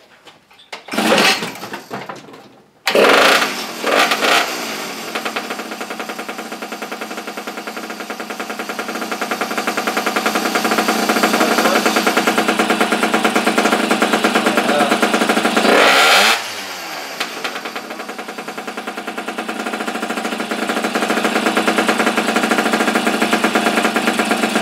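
A long-abandoned pocket bike's small air-cooled engine sputters twice, then catches about three seconds in and runs with a rapid, rattling firing. It revs up, drops back briefly about sixteen seconds in, and then revs up again.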